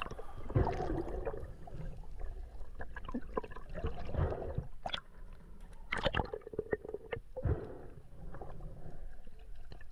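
Underwater sound picked up by a freediver's camera as he hauls in his speargun reel line: a low, muffled rush of water with scattered clicks and knocks, the loudest about six seconds in.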